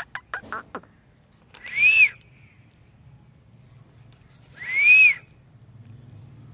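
Rose-ringed parakeet giving two loud whistled calls about three seconds apart, each rising and then falling in pitch, after a quick run of short clicky chirps in the first second.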